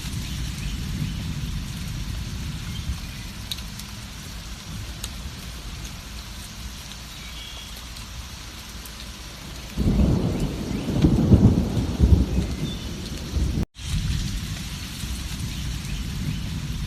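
Steady heavy rain falling. About ten seconds in, a deep roll of thunder swells up and rumbles for a few seconds, then cuts off at a split-second dropout, after which the rain continues.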